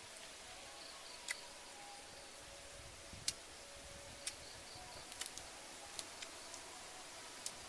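Quiet woodland ambience: faint insect chirping over a steady hiss, with about six scattered sharp clicks and taps from close handling of food and leaves.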